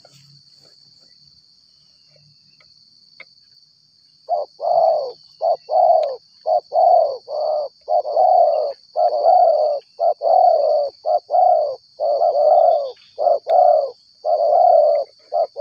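Spotted dove cooing close by in a fast, unbroken run of short low coos, starting about four seconds in, over a steady high hum of insects.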